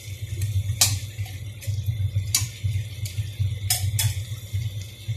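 Chicken and vegetables sizzling in a stainless steel wok. A metal spatula clinks against the wok about six times as the food is stirred, over a low hum.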